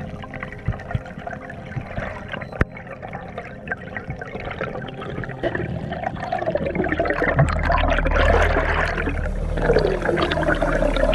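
Underwater water noise around a freediving spearfisherman, with scattered sharp clicks. About halfway through it grows louder into a rushing, bubbling sound as he swims up toward the surface.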